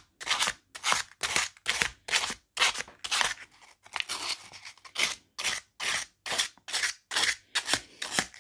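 Folded 280-grit wet-and-dry abrasive paper rubbed in quick repeated strokes along the steel teeth of an English pricking iron, polishing them: a rhythmic scraping of about two to three strokes a second.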